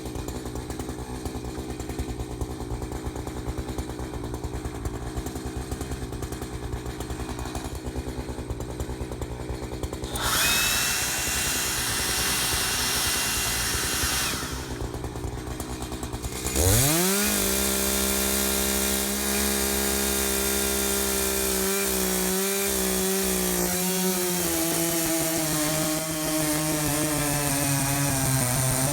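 Echo CS-590 two-stroke gas chainsaw idling, blipped up briefly about ten seconds in, then opened to full throttle about seventeen seconds in, its engine pitch sinking slowly as it comes under load.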